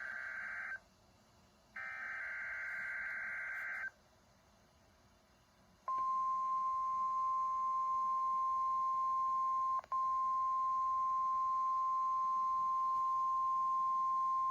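NOAA Weather Radio Emergency Alert System test signal. Buzzy, warbling digital SAME header bursts: one ends under a second in, and another runs from about 2 to 4 seconds. After a short gap, the steady single-pitch 1050 Hz weather radio warning alarm tone starts about 6 seconds in, with a brief dropout near 10 seconds. This is the alert sequence of a Required Weekly Test.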